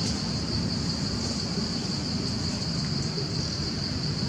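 A steady, high-pitched insect chorus drones without a break over a low rumbling background noise.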